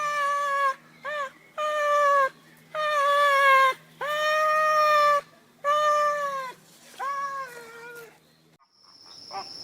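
A cat meowing over and over, about seven meows, each between half a second and a second long, one of them short. Near the end the sound cuts off, and a steady high tone with faint chirping takes over.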